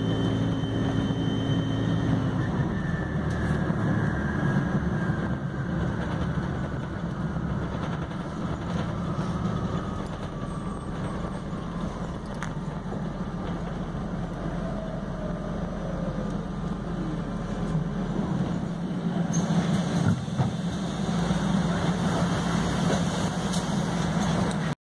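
Inside a MAN Lion's City Hybrid city bus on the move: a steady rumble of drive and road noise, with a whine from the hybrid drive gliding down in pitch as the bus slows. Near the end come a few knocks and a rise in hiss.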